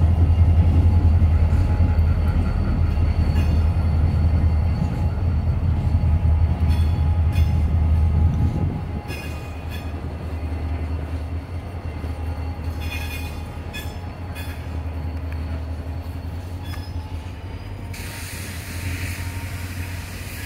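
Two CSX diesel-electric freight locomotives pass with a loud, low engine rumble that drops off about eight and a half seconds in. A string of freight cars then rolls by more quietly, with a thin, steady, high wheel squeal and a few sharp clanks. A brief hiss comes near the end.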